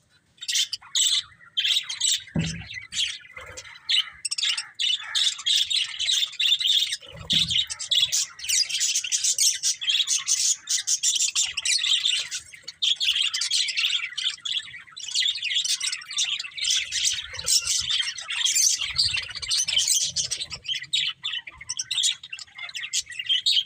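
Budgerigars chirping and chattering without pause in quick, overlapping high chirps, with two soft low thumps early on.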